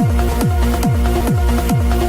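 Electronic dance music with a steady four-on-the-floor kick drum, about two beats a second, and sustained synth tones.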